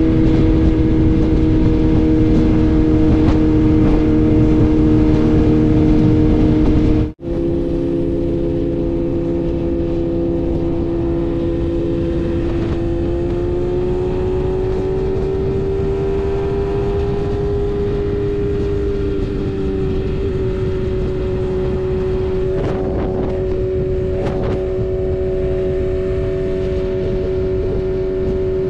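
BMW S1000RR's inline-four engine running at a steady cruise over a constant rushing noise. Its pitch climbs gently for a few seconds midway, then holds. The sound cuts out for an instant about seven seconds in and comes back a little quieter.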